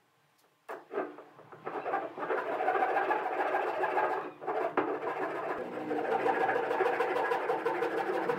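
Fine-toothed hand saw cutting across a softwood board in quick back-and-forth strokes, beginning about a second and a half in after a few light knocks, with a brief pause midway.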